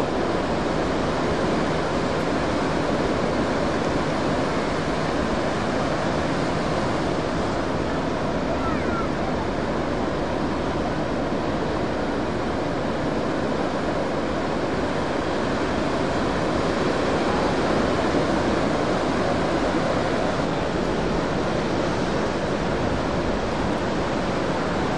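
Heavy ocean surf breaking, a steady unbroken wash of crashing waves and rushing whitewater.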